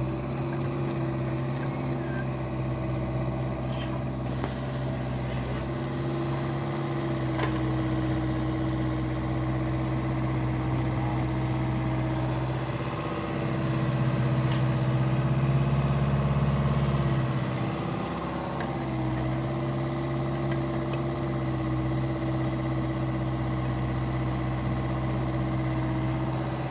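Caterpillar 304E mini excavator's diesel engine running steadily while the machine digs and swings its bucket. It gets louder for a few seconds about halfway through as the engine takes more load, with a few light knocks here and there.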